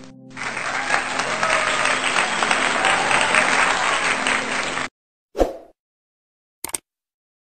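Applause sound effect, a crowd clapping, that cuts off abruptly about five seconds in. A short pop follows, then a quick click.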